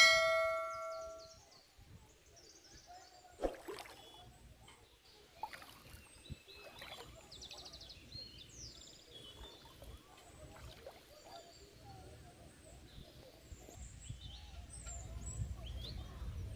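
A bell-like chime rings out and fades over a second or so, then quiet outdoor background with faint birdsong chirping and a few light clicks. A low rumble builds near the end.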